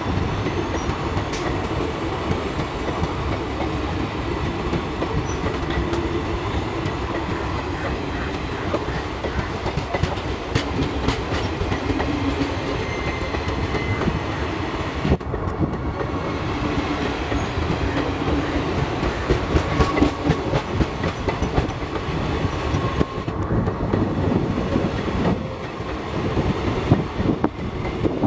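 ICF passenger coaches of an Indian express train rolling past close by, the wheels clattering over the rail joints in a steady run of clicks and knocks over the running noise of the train.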